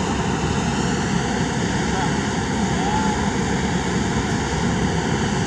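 Kobelco SK200 excavator's diesel engine running at a steady, even drone while its boom and bucket are held over the truck.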